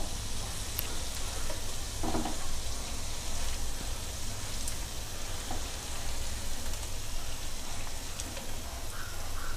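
Cauliflower florets deep-frying in hot oil in a wok: a steady sizzle, with a few faint ticks as the pieces are lifted out with a wire strainer.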